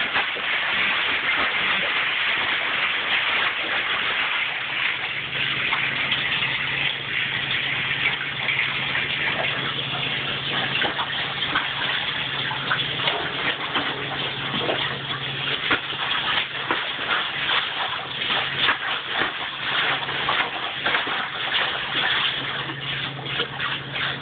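Bathtub tap running in a steady gush while a rottweiler paws and splashes in the water, giving irregular splashes over the flow. A low steady hum comes in about five seconds in.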